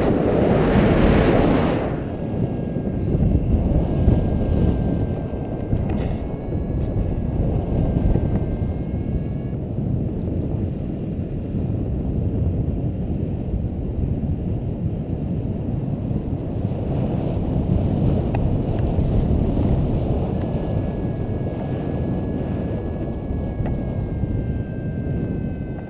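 Wind buffeting the action camera's microphone in flight under a paraglider: a steady, heavy rumble, with a louder gust in the first two seconds. Faint, thin, steady high tones come and go over it.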